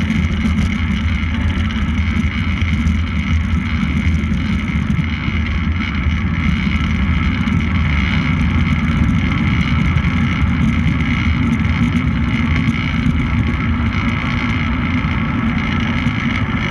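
Steady rush of wind over a fast-moving camera's microphone, with a constant low rumble and a steady higher drone from travelling at sprint speed around a velodrome.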